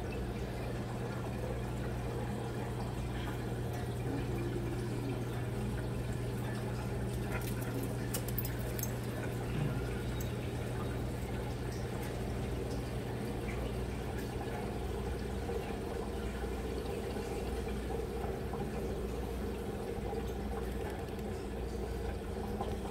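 Aquarium filter running: a steady trickle of moving water over a constant low hum from the pump.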